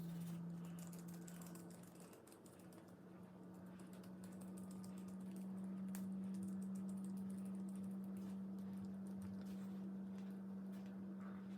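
Faint sticky clicks and small pops of hand-worked slime being pulled apart and pressed, over a steady low hum.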